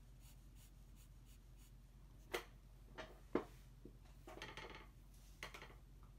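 Pencil on paper during a sketch: soft scratchy strokes, with three sharp taps from about two and a half seconds in and a couple of short bursts of scratching near the end.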